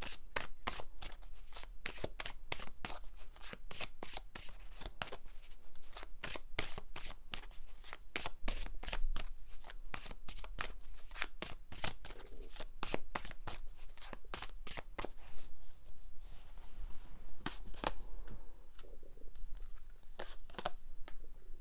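A deck of tarot cards being shuffled by hand: a fast, dense run of card clicks for about fifteen seconds, then slowing to a few separate snaps near the end.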